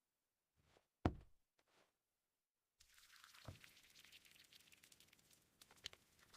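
Near silence with one soft tap about a second in and two fainter clicks later, over a faint hiss.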